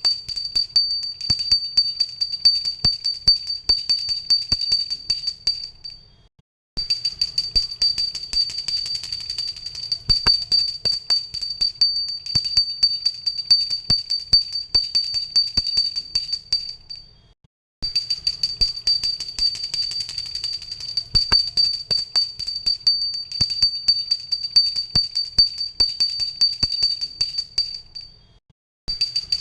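Pooja bell rung rapidly and continuously: fast strikes of the clapper under a bright, steady high ring. The ringing fades out and stops briefly about every eleven seconds, then starts again.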